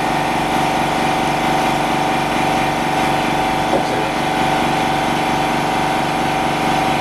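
Steady motor hum of phone-screen refurbishing machinery, an even drone with a fixed pitch that does not change.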